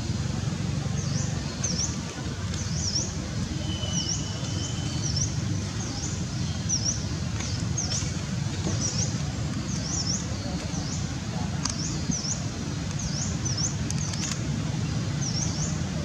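A small bird chirping over and over, short high notes about one a second, over a steady low background rumble.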